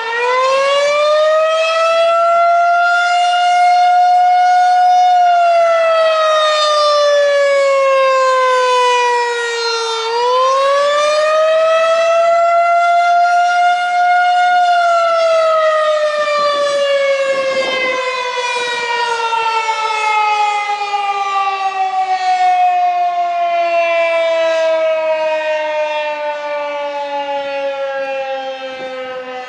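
Federal Signal 2001-130 rotating civil defense siren sounding the wavering attack signal. Its pitch rises for about five seconds and falls for about five, twice. It then winds down in a long, slow falling tone that grows quieter near the end.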